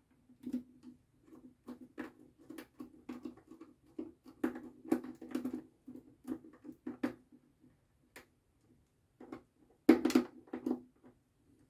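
Irregular clicks and scrapes of a small screwdriver working the screw terminals of an ABB timer relay, mixed with wires being handled; a louder run of clicks comes near the end.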